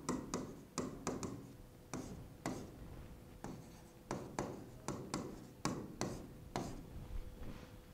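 A stylus writing on an interactive whiteboard screen, making irregular short taps and scrapes as the strokes of words are written.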